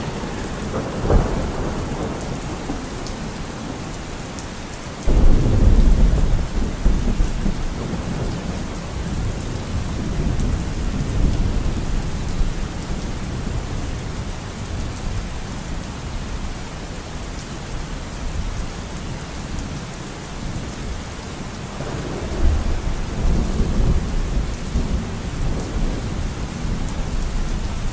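Steady rain with rolls of thunder. A short crack comes about a second in, a loud rumble breaks suddenly about five seconds in and dies away over a few seconds, and another rumble comes near the end.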